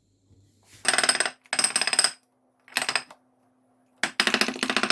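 Metal espresso filter basket rattling and clinking in its portafilter in four short bursts, the last and longest about four seconds in.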